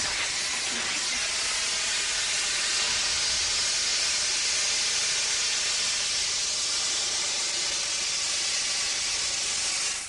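Liquid carbon dioxide from a pressurised cylinder blasting out of an open valve and pipe, a loud, steady hiss as it flashes to gas. The rapid evaporation chills the pipe until it frosts white.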